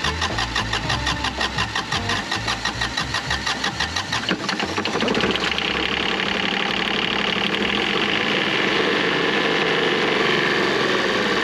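Small marine diesel generator engine cranking on its starter for about four and a half seconds, with air let into its fuel system by newly fitted injectors. It then catches and runs steadily.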